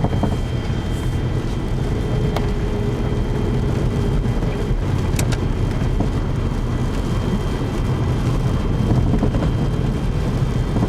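Car cabin noise while driving on a snowy road: a steady low rumble of engine and tyres, with a faint steady high whine and two faint clicks.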